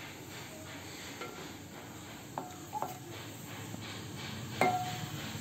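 Wooden spatula knocking against a large aluminium pot three times, about two and a half, three and four and a half seconds in, the pot ringing briefly after each knock, the last the loudest. Underneath is a steady low hiss from the pot of coconut-milk gravy heating on the gas burner.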